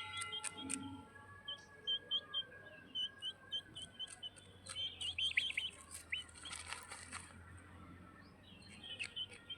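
Baby bird chirping: a run of short, high chirps about twice a second, then a quick cluster of chirps about five seconds in, with a few sharp clicks between them.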